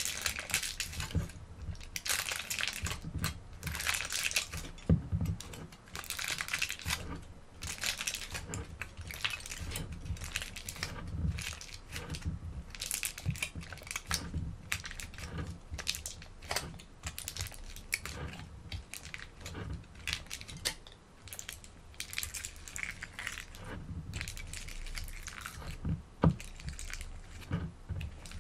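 Aluminium foil crinkling and crackling as hands press and smooth it flat over a packed hookah bowl, in quick, irregular crackles.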